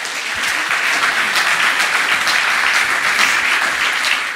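Audience applauding: many people clapping, a dense steady patter.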